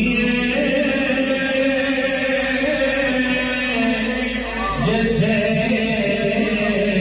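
A man chanting devotionally into a microphone in long drawn-out phrases, a Sufi zikr chant, with a new phrase starting a little under five seconds in.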